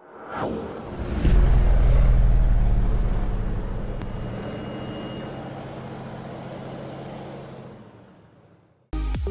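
Logo intro sound effect: a falling whoosh, then a deep rumble that swells and slowly fades over several seconds. Electronic music cuts in suddenly near the end.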